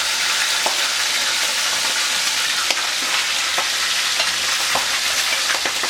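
Chunks of pork for griot frying in hot oil: a steady sizzling hiss with scattered sharp pops and crackles of spitting grease.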